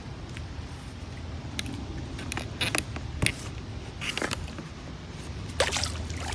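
A few short knocks and scrapes as a kayak paddle is handled against an inflatable kayak, over a low steady rumble.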